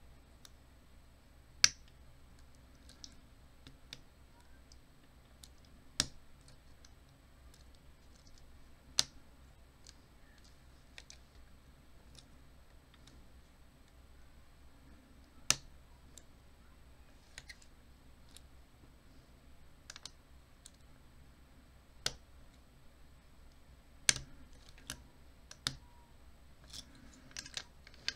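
Lock pick and tension wrench working the pin tumblers of an American Lock 1100 series padlock: sharp, irregular metal clicks a few seconds apart, with fainter ticks between and a quick run of clicks near the end.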